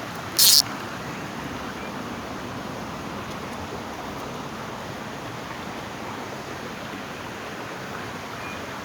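River water flowing, a steady rushing hiss, with one short sharp hissing rustle about half a second in.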